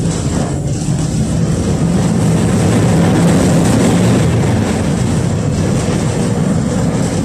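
KTM-5M3 (71-605) tram running, heard from inside the passenger cabin: a steady rumble of steel wheels on the rails and the DK-259G3 traction motors, growing louder over the first three seconds and then holding.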